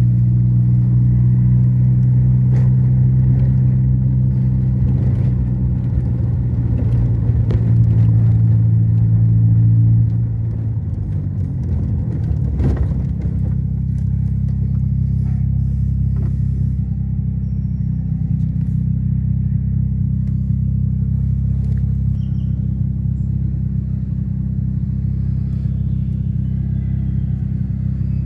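Car engine and tyre rumble while driving on a paving-stone street, a steady low drone. The engine note drops and changes about ten seconds in, then settles into a slightly quieter steady drone.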